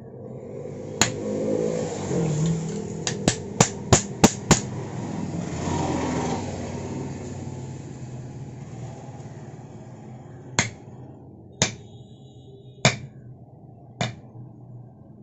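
Blacksmith's hand hammer striking a knife blade on the anvil: a single blow, then a quick run of six strikes a few tenths of a second apart, then four separate blows about a second apart near the end.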